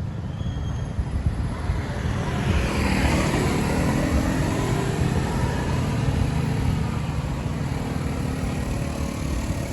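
Tour bus engine running close by with a deep, steady drone, and a rush of road noise that swells about three seconds in. No horn sounds.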